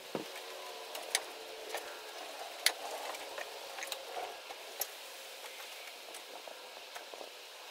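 Quiet workshop room tone with a few scattered light clicks and taps, like small metal objects and equipment being handled.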